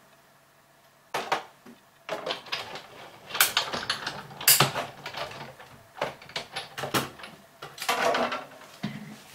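Big Shot hand-cranked die-cutting machine: a series of clicks and knocks as the cutting plates with a label die are fed through and handled, starting about a second in.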